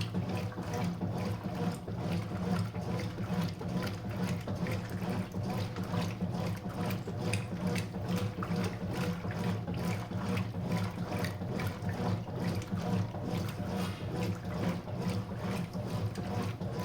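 Consul 5 kg washing machine running: a steady low motor hum under continuous water churning and splashing in the tub.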